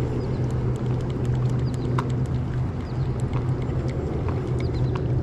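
Steady low rumble of flowing river water, with scattered small splashes and drips.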